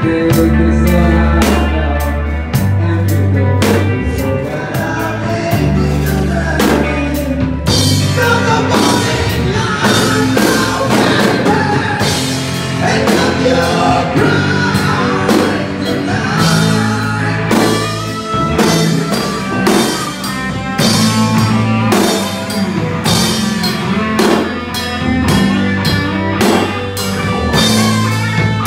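Rock band jamming live on drum kit, electric bass and electric guitar, with steady drum hits and a moving bass line. A singer's voice joins from about eight seconds in. The bass guitar is out of tune.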